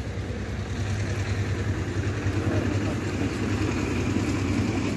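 An engine running with a steady low hum, slowly growing louder.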